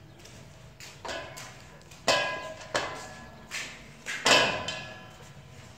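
Watermelon being cut with a knife over stainless steel plates: about six sharp knocks of the knife and slices on the steel, each ringing briefly, the loudest about two and four seconds in.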